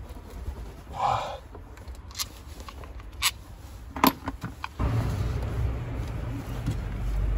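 Scattered clicks and knocks of plastic and metal parts being worked loose by hand on a diesel engine, with a steady low rumble that comes in about five seconds in.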